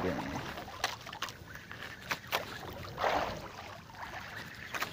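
Sea water sloshing around a small fishing boat, with scattered sharp clicks and knocks from a spinning reel being cranked and the rod being handled. There is a brief rush of noise about three seconds in.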